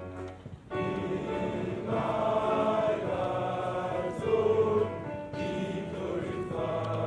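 A large choir of schoolboys singing a hymn together in long held phrases, with a brief breath-break a little under a second in.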